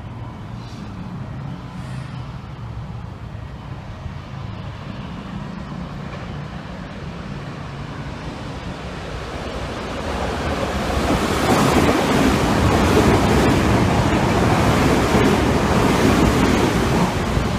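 Keikyu express train passing through a station at high speed without stopping: a low rumble as it approaches, swelling about ten seconds in into a loud rush of wheels on rail and air as the train sweeps past close by.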